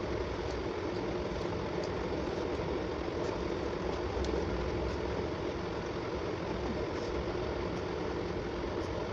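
A steady mechanical hum and rush at an even level, with a few faint light clicks.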